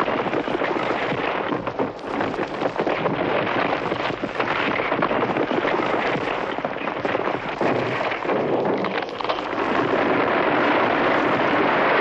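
Vintage sound-effect recording of an avalanche: a continuous dense rushing noise full of crackles, growing louder about ten seconds in.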